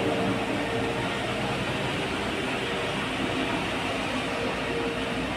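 Steady engine and road noise of heavy vehicles at a steep hairpin bend, a bus climbing uphill past a stopped truck, with a faint steady hum.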